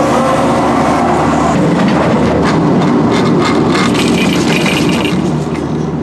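Detachable chairlift running through its station: a steady mechanical hum with a run of rattling clicks and clacks through the middle as the chair moves through the station and over the sheaves.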